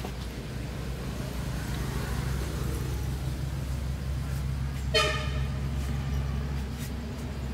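Steady low hum of a running motor vehicle, with one short horn-like toot about five seconds in.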